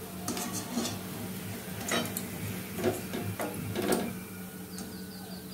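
Wire spider strainer knocking and scraping against a steel kadai as fried koftas are scooped out of the hot oil, about six short clinks over the first four seconds, with the oil still sizzling under them.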